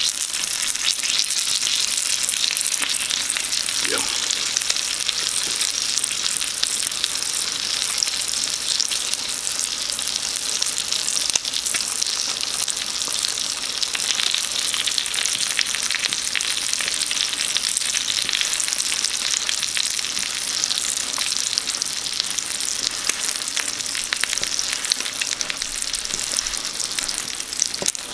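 Bacon-wrapped sausages and ramen noodles frying on a hot pan, sizzling and crackling steadily.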